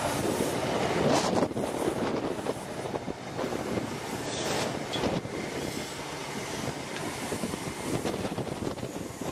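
Chiltern Railways Mark 3 passenger coaches rolling past close by, their wheels rumbling steadily on the track. There are sharper clatters about a second in and again around four and a half seconds.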